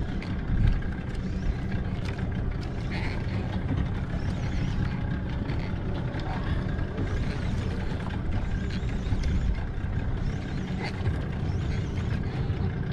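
Outrigger fishing boat's engine running in a steady low rumble.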